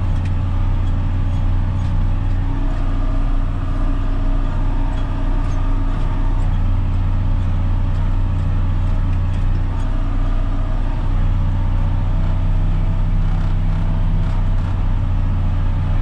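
John Deere tractor engine running steadily under load, heard from inside the cab, with a strong, even low hum. The tractor is pulling a lime spreader up a steep slope.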